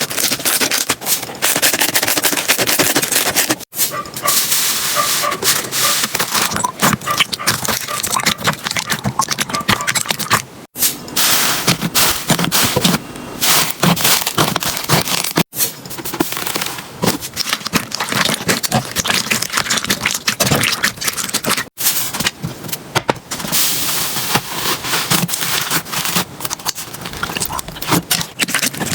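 Slime being squished and pressed by hand: dense, sticky crackling and clicking from popping air pockets. The sound breaks off briefly about four times as one clip cuts to the next.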